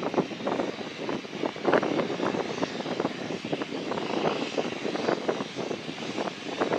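BAE Jetstream 32's twin Garrett TPE331 turboprop engines running as the airliner moves along the runway, a steady, fluctuating drone.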